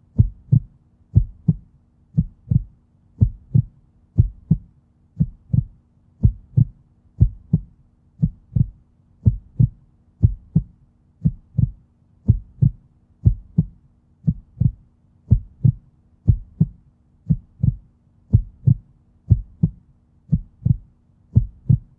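A heartbeat: paired lub-dub thumps repeating steadily, a little faster than one beat a second, over a faint low hum.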